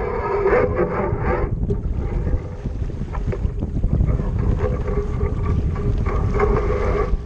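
Wind buffeting the microphone with the wash of choppy water as a small sailboat sails along. A wavering hum sits over it, strong for the first second and a half, fading, then coming back near the end.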